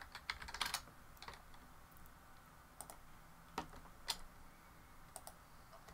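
Computer keyboard typing: a quick run of keystrokes in the first second or so, then a few single clicks spaced apart.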